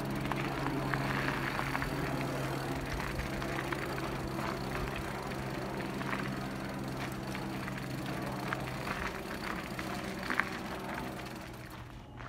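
Mountain bike rolling along a dirt forest trail: tyre and rattle noise with scattered small knocks over a steady low hum, dropping away near the end.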